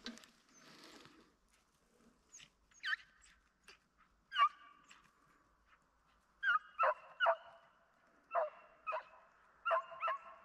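A hunting dog barking during a driven hunt: short barks, sparse and faint at first, then louder and coming in quick pairs and threes from about the middle, the steady barking of a dog chasing game.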